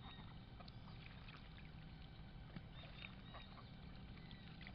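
Faint splashing and dabbling of ducks bathing in a shallow pool, with scattered small water ticks over a low steady rumble.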